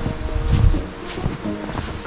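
Background music with held notes over a beat.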